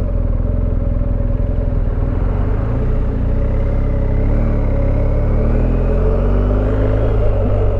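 BMW R1250GS Rallye's boxer-twin engine running at low speed in slow traffic, rising a little in pitch a few seconds in as the bike pulls away.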